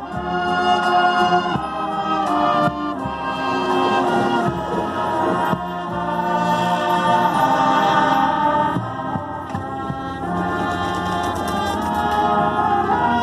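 Marching band playing: wind and brass sections hold full chords, with drum strokes during the first few seconds.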